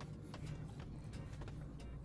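Kitchen knife slicing through boiled breadfruit and tapping the wooden cutting board: a run of irregular light clicks and taps.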